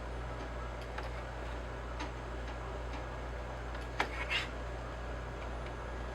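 A few light clicks, then a sharper click and a short rattle about four seconds in, over a steady low hum.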